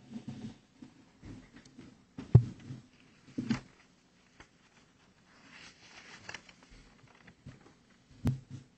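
Handling noises in a quiet room with no speech: scattered knocks and thumps, the loudest a sharp thump about two and a half seconds in and another a second later, a stretch of rustling around six seconds, and a sharp click near the end.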